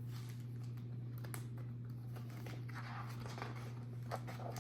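Paper pages of a picture book being turned and handled: soft rustling with a few light taps, over a steady low hum.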